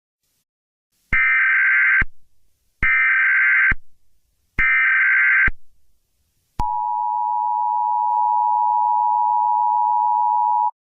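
Emergency Alert System tones: three short, screeching SAME data bursts, then the steady two-tone attention signal held for about four seconds. Together they mark the start of an emergency alert broadcast.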